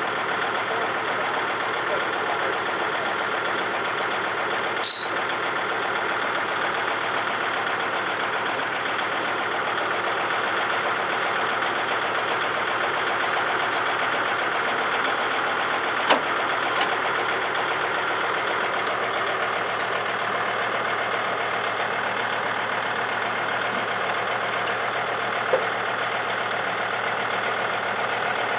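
Kubota tractor's diesel engine idling steadily, with a few short sharp knocks, one about five seconds in and two close together past the middle.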